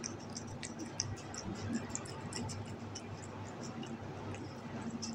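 A kitten licking and chewing at a person's fingers, making irregular small wet clicks several times a second, over a low steady hum.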